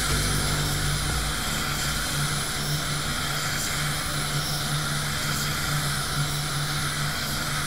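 Spray booth extraction fans running: a steady rush of air with a low, even hum underneath.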